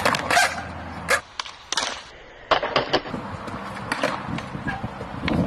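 Skateboard tricks on concrete: a string of sharp clacks from the tail popping and the board landing and hitting the ledge, over the rumble of urethane wheels rolling, with a quieter moment where the footage cuts.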